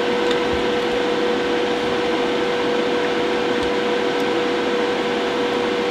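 Steady fan whir with a constant mid-pitched hum running under it, typical of the cooling fans of bench test equipment such as a digital oscilloscope.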